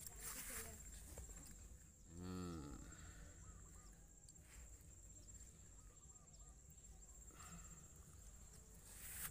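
Near silence with a faint steady high-pitched tone, broken about two seconds in by a single drawn-out animal call, like a farm animal lowing.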